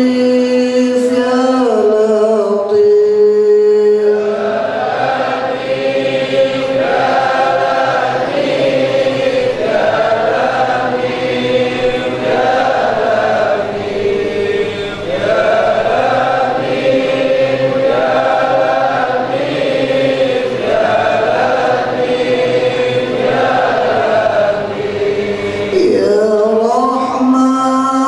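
A group of men chanting dhikr together in unison through a microphone, one short melodic phrase repeated over and over, about every two seconds.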